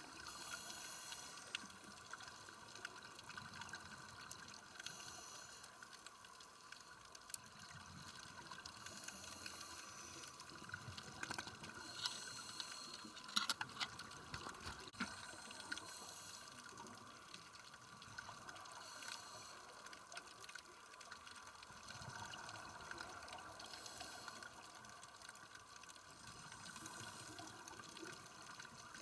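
Scuba diver's exhaled regulator bubbles, heard underwater as faint bursts of bubbling every four seconds or so over a steady hiss, with a few sharper clicks near the middle.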